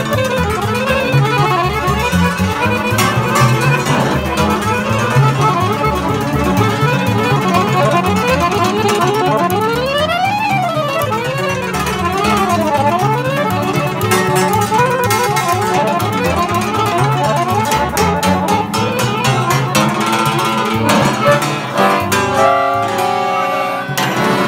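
Button-less piano accordion played close up with a small band of cimbalom, violin and double bass, playing fast Romanian folk music. Quick runs climb and fall repeatedly about halfway through.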